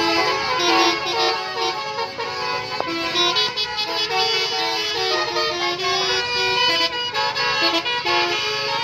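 A bus's telolet horn, a multi-tone musical horn, playing a melody of quickly changing notes that step up and down.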